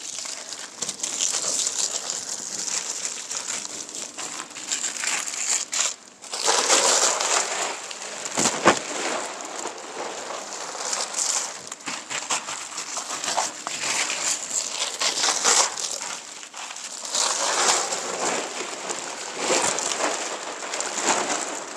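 Thin clear plastic sheet crinkling and rustling as it is pressed by hand into wet textured plaster on a wall and pulled away again. The crackle is continuous and uneven, with louder surges and a sharp click about eight seconds in.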